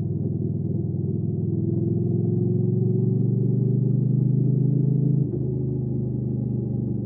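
Hyosung GV300S Aquila 300's V-twin engine pulling under acceleration, its pitch climbing slowly. About five seconds in the revs drop suddenly, as on an upshift, and the engine then runs steady at the lower pitch.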